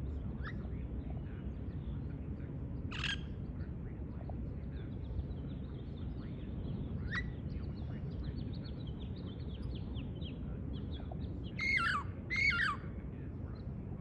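Wild parrots squawking: a lone squawk about three seconds in and another around seven seconds, a scatter of faint chirps, then two loud squawks in quick succession near the end, over a steady low background rumble.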